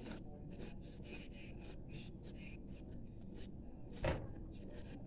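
Quiet chewing of Takis rolled tortilla chips: a run of faint crunches and mouth clicks, with one louder thump about four seconds in.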